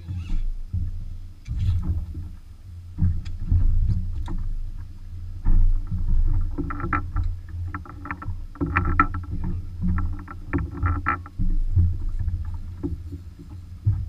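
Uneven low rumble of wind and water on a small fishing boat, swelling and fading. Clusters of quick ticking and rattling come through for several seconds in the middle.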